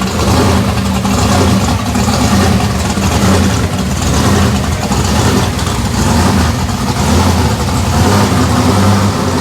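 A car engine running loudly and steadily close by, with a low, even rumble.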